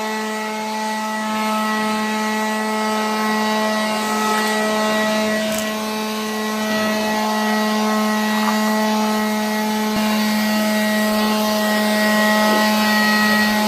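Leaf blower running steadily at one unchanging speed, clearing the area before it is pressure washed.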